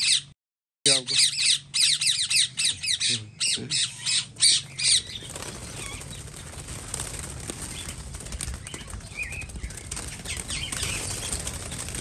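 Birds in an aviary: a quick run of sharp squawks mixed with wing flapping for the first five seconds or so, then a steadier background with occasional wingbeats as doves are released and fly.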